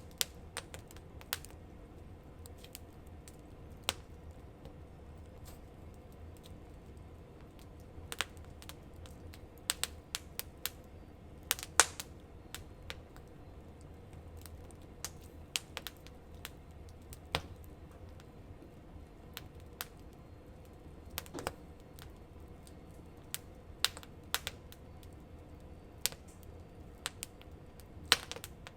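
Wood campfire crackling, with irregular sharp pops and snaps of burning wood, a few louder than the rest, over a faint steady low hum.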